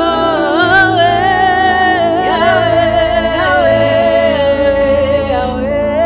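Slow spontaneous worship music: one voice sings long, wavering held notes over sustained chords, and the bass note changes about half a second in.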